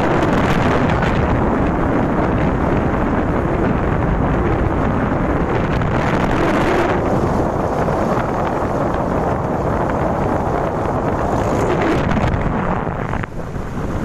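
Wind buffeting the microphone of a camera held up on a moving motorcycle: a loud, steady rush of air rumble that eases briefly near the end.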